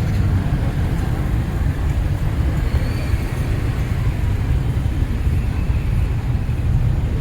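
Steady road traffic noise, mostly a constant low rumble.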